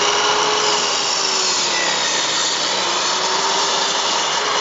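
Sliding mitre saw running and cutting through a Douglas fir board, a steady loud saw noise throughout.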